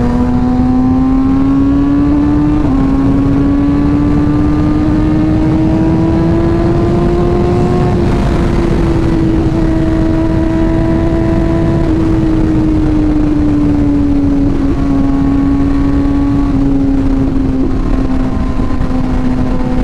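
Sports bike engine running at steady highway cruising speed, its pitch climbing slowly for about eight seconds and then easing back a little, with wind rushing over the helmet microphone.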